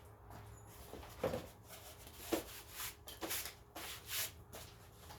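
Hands handling tools and packaging while setting them in place: a series of short rustles and scrapes with light knocks, about one a second.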